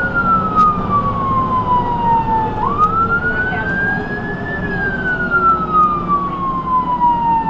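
Ambulance siren wailing, heard from inside the ambulance: a long slow fall in pitch, a quick jump back up, then a slow climb and fall again, about five seconds per cycle. Steady engine and road noise runs underneath.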